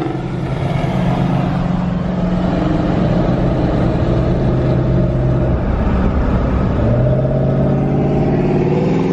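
A car engine running loudly with a steady low tone that breaks off about five and a half seconds in and comes back about a second later.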